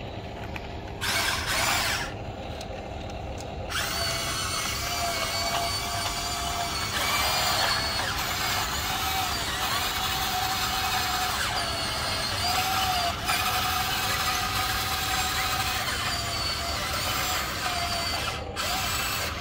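Huina remote-control excavator's small electric motors whining and its gears buzzing as the boom, arm and bucket move. It comes first in a short burst, then near-continuously from about four seconds in, with the pitch shifting slightly as the motors work.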